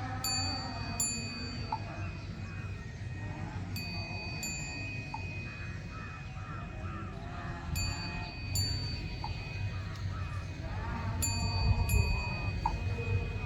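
A small bell rung at a slow, even pace, two strokes close together about every three and a half seconds. Each stroke leaves a clear, high ring that carries on until the next pair.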